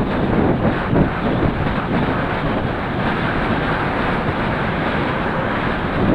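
Steady wind rush on the microphone of a bicycle-mounted action camera moving at about 30 km/h.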